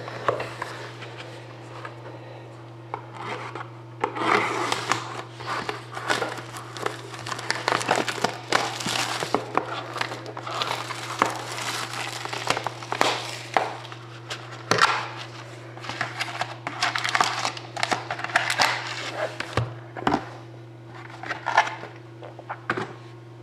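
Clear plastic shrink wrap being torn and crumpled off a trading card box, in irregular crinkling bursts, over a steady low electrical hum.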